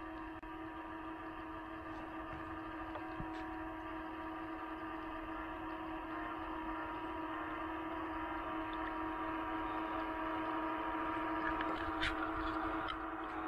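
Radio-controlled bait boat's electric motors running with a steady hum that grows louder as the boat approaches, with a few faint clicks near the end.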